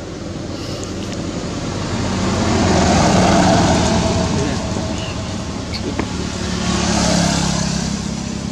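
Road traffic going by: a vehicle's noise rises to a peak about three seconds in and fades, then a second swell follows about seven seconds in.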